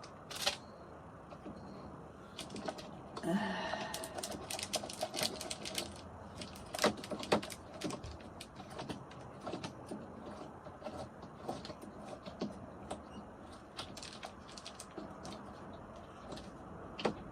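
Irregular small clicks and taps of drawer-knob hardware being handled: a small nut being threaded onto the knob's screw and fitted by hand, with a brief pitched sound about three seconds in.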